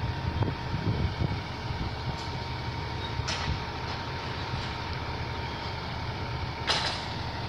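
Heavy truck engine running with a steady low rumble and a faint steady whine during a tow. Two short hisses cut through, about three seconds in and near the end.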